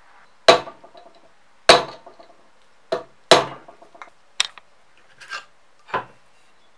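About eight sharp knocks and taps at uneven spacing, the loudest near the start and about a third of the way in, several with a brief ring, made while finishing a coiled stainless-steel wire guard on a wooden hammer handle.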